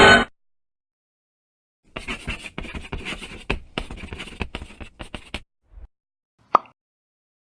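Sound effects played back one after another: a tail of music cutting off at the start, then about three and a half seconds of rapid, irregular scratching strokes, a soft low thud, and a single sharp pop.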